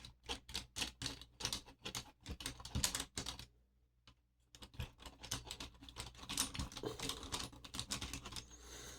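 Rapid small clicks and ticks of metal lock hardware and tools being handled while a Schlage lock is taken apart, with a brief pause about four seconds in.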